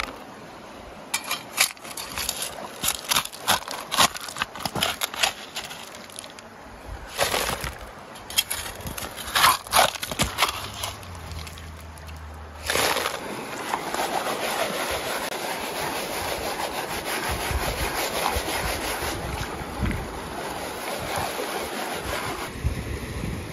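Stones and gravel clattering and knocking in a plastic classifier sieve and on a shovel. About halfway through it gives way to a steady wash of water as a plastic gold pan full of sediment is worked in a shallow stream.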